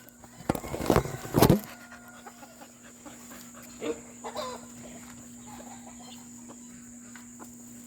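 A dog gives a few short, loud vocal sounds between about half a second and a second and a half in, then faint chicken clucks follow. A steady low hum runs underneath.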